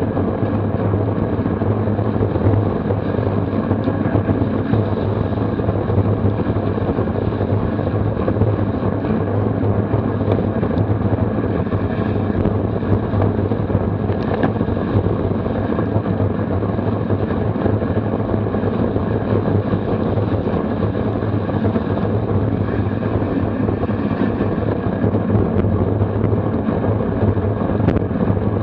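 Steady rush of wind over the microphone of a camera mounted on a road bike racing at about 28 mph, mixed with the hiss of tyres on wet pavement.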